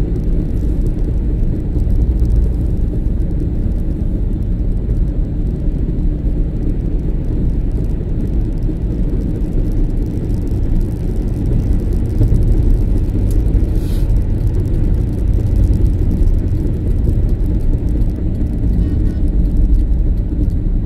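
Steady low rumble of a car driving at highway speed, its tyre and engine noise heard from inside the cabin.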